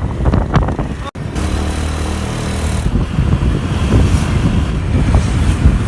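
Wind buffeting the microphone of a moving vehicle, with a steady engine hum beneath it. The sound cuts out for an instant about a second in.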